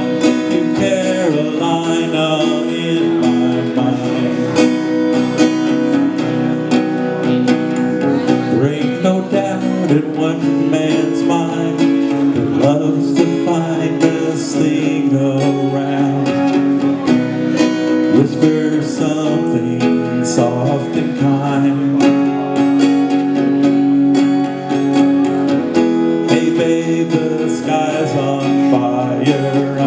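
Acoustic guitar played solo, strummed chords ringing steadily through a song passage.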